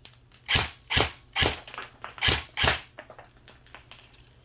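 Airsoft M4 electric gun (AEG) firing single shots in semi-auto, running on a 9.6 V NiMH battery: five sharp shots in about three seconds, three evenly spaced, then a short pause and two more.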